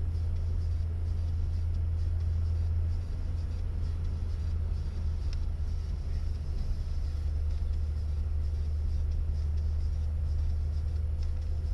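VW Golf Mk1's engine and exhaust heard from inside the cabin while cruising at a steady speed: a deep, steady drone, with a brief dip about three seconds in.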